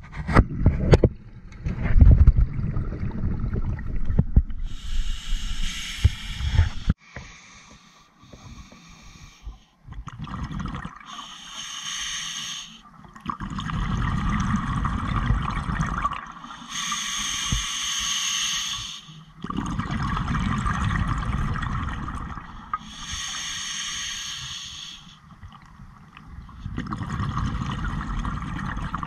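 Scuba diver breathing through a regulator underwater: a hissing inhale about every six seconds, each followed by a low, rumbling rush of exhaust bubbles. Loud bumps and knocks fill the first couple of seconds.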